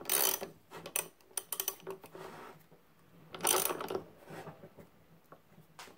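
Socket ratchet clicking in short bursts as it cranks the forcing screw of a gear puller pulling a gear off a Model T Ford transmission drum, with the loudest run of clicks about three and a half seconds in.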